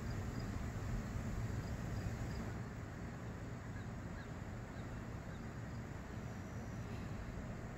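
Outdoor ambience: a steady low wind rumble on the microphone, with a few faint, high, short chirps in the first half.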